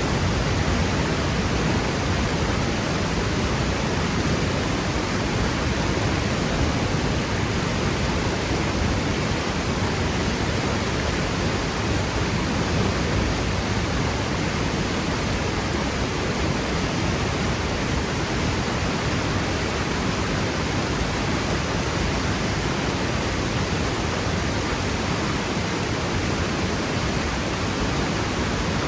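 Waterfall crashing into its plunge pool, a steady, full rushing roar of falling water with no change.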